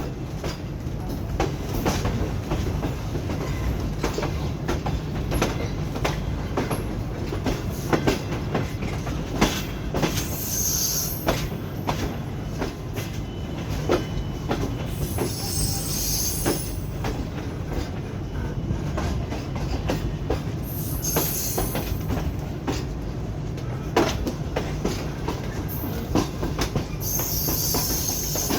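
The Sir Syed Express passenger train rolling along the track while arriving at the station: a steady low rumble with repeated clacks of wheels over rail joints. High-pitched wheel squeal rises four times, at about ten, sixteen, twenty-one and twenty-eight seconds in.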